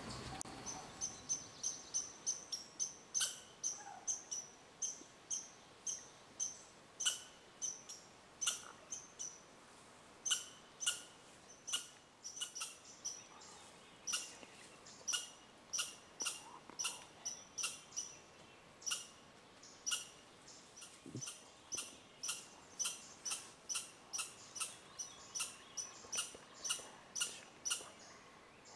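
A small animal's short, sharp, high chip call, repeated over and over at about one to two calls a second, irregularly.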